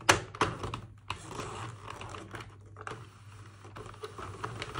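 Sentro 48-needle hand-cranked knitting machine being turned, its plastic needles and crank clicking fast and evenly, with a few sharper clacks about the first second. It is knitting the first rows of waste yarn for a flat panel.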